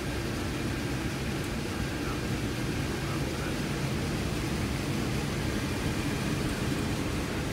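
Steady rumble and hiss inside a C-17 Globemaster III cockpit: the four turbofan engines at low taxi power together with the cockpit air system, as the aircraft taxis on the runway.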